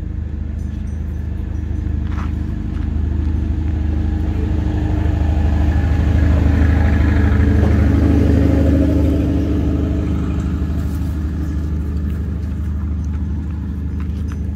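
A motor engine running with a steady low hum, growing louder through the middle and easing off again toward the end.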